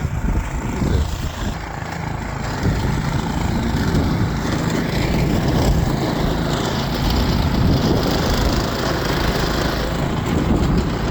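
Wind buffeting the phone's microphone in a snowstorm: a loud, continuous low rumble that rises a little about two and a half seconds in and holds.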